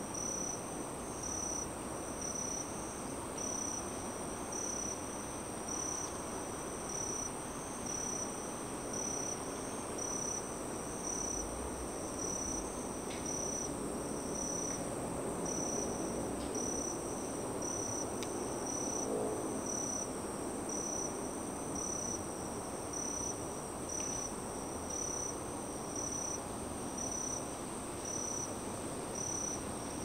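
Forest insects calling: a steady high-pitched trill with a pulsing chirp repeating about one and a half times a second, over the steady low noise of highway traffic.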